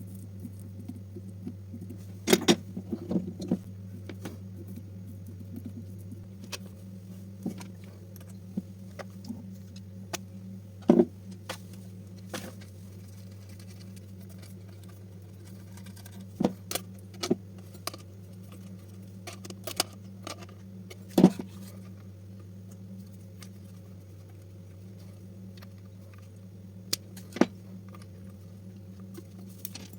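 Scattered sharp clicks and clinks, like small metal parts or tools being handled, a few at a time with gaps of several seconds, over a steady low hum.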